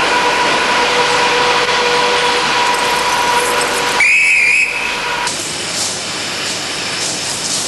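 Railway train noise: a steady hiss with a thin high whine, and a short warbling whistle about four seconds in. The noise drops a little soon after.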